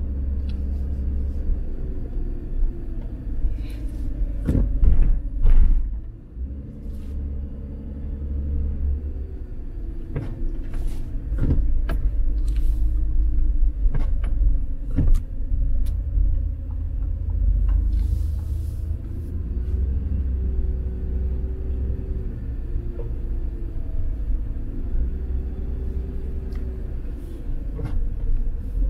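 Low rumble of a car's engine and tyres heard from inside the cabin while driving slowly, the engine note rising and falling gently. A scattering of short knocks and clicks comes through, most of them in the first half.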